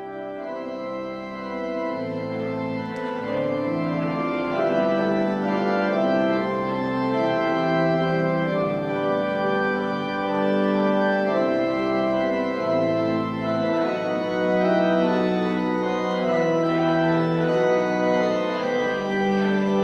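Organ playing sustained chords, coming in softly and building over the first couple of seconds, then holding full with the chords changing every second or two.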